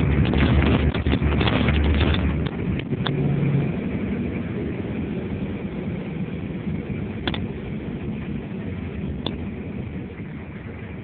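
Road vehicle driving along a town street, with steady engine and road rumble heard from inside the vehicle. It is heavier for the first two seconds or so, then eases off, and there are two sharp clicks later on.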